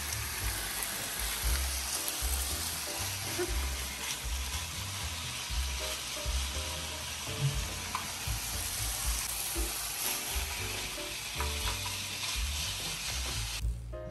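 Meat sizzling on a hot Korean BBQ grill pan over a portable gas burner, a steady hiss that cuts off suddenly shortly before the end.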